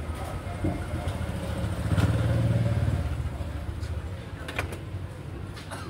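Street traffic: a vehicle engine rumbles past, loudest about two to three seconds in and then fading. A couple of light clicks come near the end.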